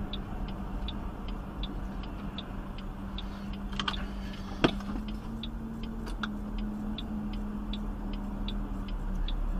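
Car cabin with the turn-signal indicator ticking steadily, about three clicks a second, over steady engine hum and road noise, with one sharp knock about halfway through.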